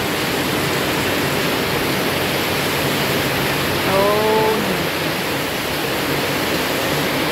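Heavy rain downpour: a steady, even rushing hiss of rain pouring down.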